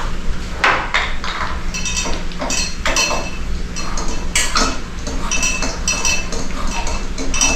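A series of sharp clinks and knocks from hard objects striking each other, several with a short high ring, coming unevenly about one to two times a second.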